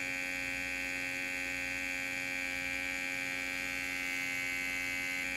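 Small 6–9 V DC mini air pump, built into a syringe barrel, running steadily with an electric hum and a high whine while it blows up a balloon.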